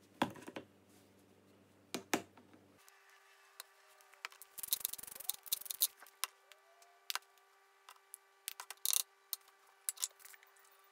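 Clicks and knocks of spice jars, a soy sauce bottle and a glass bowl being handled and set down on a wooden butcher-block board, with a denser stretch of scraping and rattling about five seconds in. A faint steady hum runs underneath from about three seconds in.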